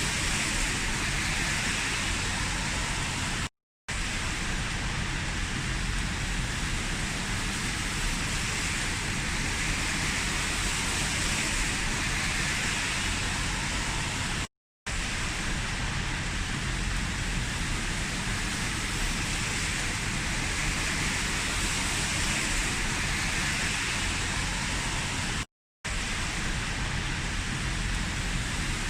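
Heavy rain falling in a steady hiss, cut off to silence for a split second three times, about every eleven seconds.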